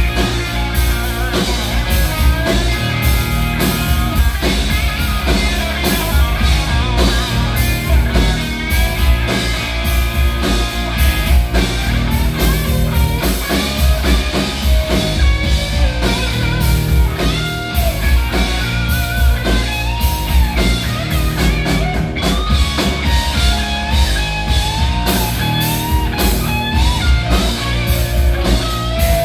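Live rock band playing loud: a distorted electric guitar, an SG-style solid-body, plays a lead solo full of string bends and vibrato over electric bass and a drum kit.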